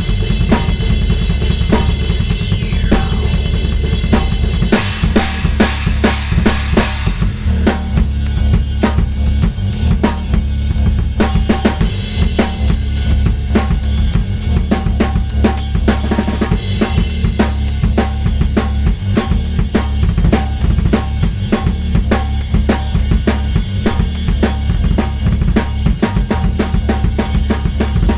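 Drum kit played in a fast, dense improvisation, with kick drum, snare and rim shots, over a steady low backing drone from an audio sample.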